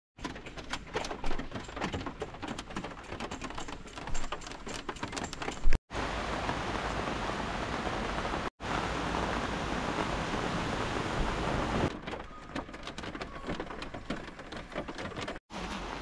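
Heavy rain falling. Close drops hit a surface sharply in the first few seconds and again from about twelve seconds in, with a steady, even downpour hiss in between.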